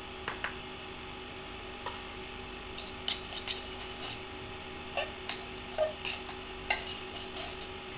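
A spatula scraping and knocking inside an open tin of condensed milk to get the last thick milk out: scattered light clicks and scrapes, more of them in the second half, over a steady low hum.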